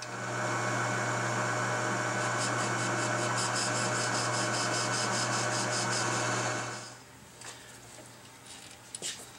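Metal lathe running with its chuck spinning while a tool takes a light facing cut on the chuck adapter, a steady motor-and-gear hum. It stops about seven seconds in, followed by a few small knocks as the chuck is handled.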